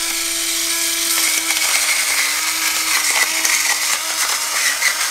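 Battery-powered electric salt mill grinding coarse salt: a small motor running steadily, with a gritty grinding noise over its hum.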